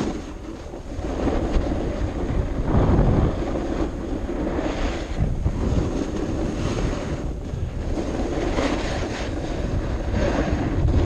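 Heavy wind buffeting the microphone, a loud rushing that swells and eases every couple of seconds.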